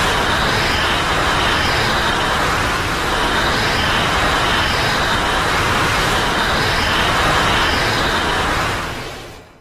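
Godzilla Terrestris monster sound effect: a loud, steady rushing rumble with faint high chirps repeating about once a second, fading out near the end.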